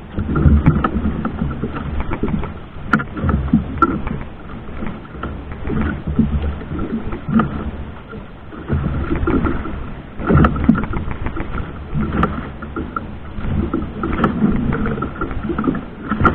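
A boat under way at sea: wind and water wash over it in uneven surges every second or two, with a faint steady whine underneath.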